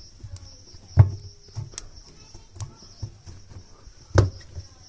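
Cloth wiping and rubbing at a front-loading washing machine's rubber door seal to scrub off grime, with sharp handling knocks about a second in and again near the end.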